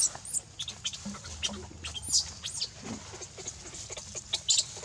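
Baby macaque giving short, high-pitched squeaks in a few quick bursts: at the start, about two seconds in, and near the end.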